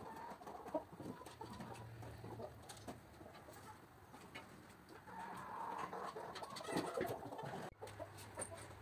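A flock of domestic chickens clucking and calling, faintly, with scattered short calls.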